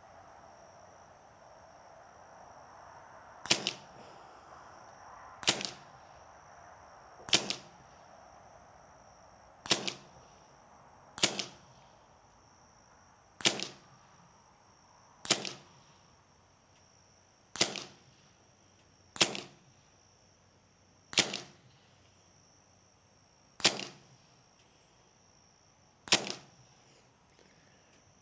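Hatsan Velox semi-automatic PCP air pistol firing twelve single shots, one roughly every two seconds, each a sharp crack of compressed air. A steady high insect trill runs underneath.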